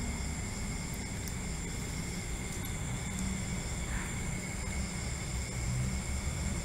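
Steady night ambience: a constant high-pitched drone of night insects over a low, even rumble.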